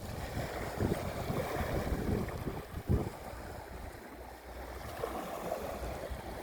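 Sea waves washing, with wind buffeting the microphone in low rumbling gusts and a sharper bump about three seconds in.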